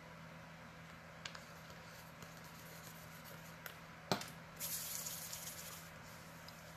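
A few faint ticks of small items being handled, then a sharp click about four seconds in, followed by a spray bottle misting with about a second of hiss.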